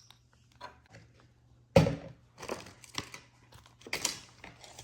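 Small plastic dinosaur toy parts being handled and fitted together: a few sharp clicks and knocks, the loudest about two seconds in, with light rustling between.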